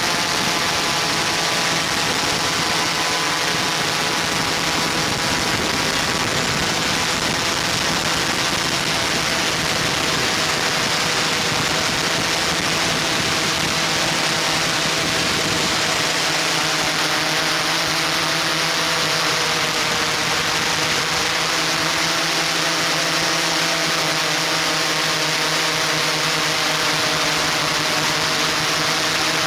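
Multirotor drone's motors and propellers whirring steadily: a dense hiss with a hum of several tones whose pitch wavers slightly past the middle.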